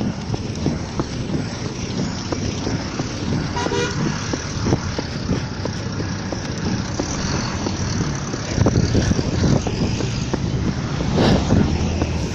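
Steady road traffic noise, with a brief vehicle horn toot about three and a half seconds in.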